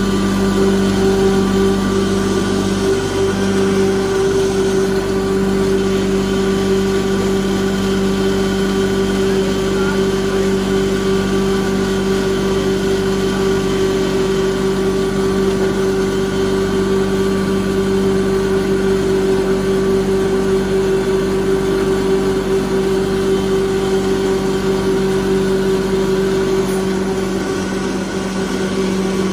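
Electric-motor-driven wood grinding machine (sawdust pulverizer) running steadily under load as wood shavings are fed into its hopper: a loud, even mechanical drone with a steady hum.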